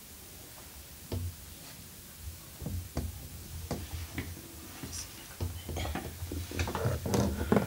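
Scattered light knocks and clicks of people moving about and settling in at a table, growing busier toward the end.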